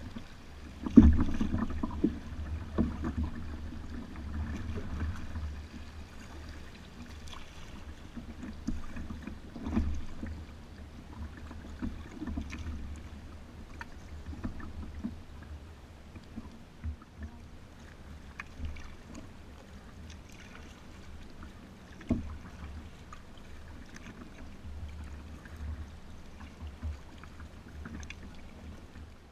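Kayak being paddled along a river: paddle strokes and water splashing and lapping against the hull, with a low rumble and occasional sharp knocks on the boat, the loudest about a second in.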